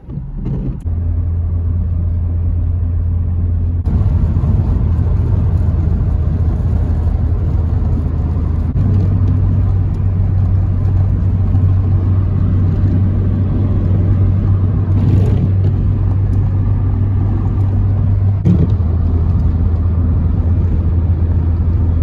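Car driving at a steady speed: a continuous low drone of engine and road noise.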